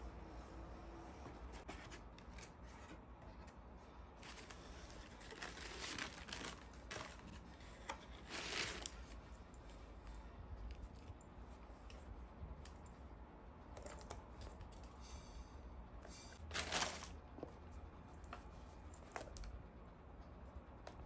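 Faint handling sounds in a small room: scattered brief rustles and scrapes, the loudest about nine and seventeen seconds in, over a low steady hum.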